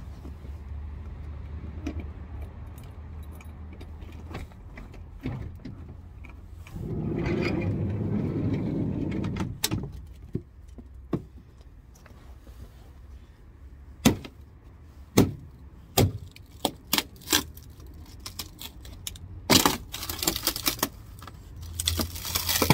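Keys jangling in the Talbot Express campervan's passenger door lock as it is unlocked and opened. In the second half come sharp separate knocks, then a spell of crunching and scraping as the rotten sill metal under the door is handled and pulled at.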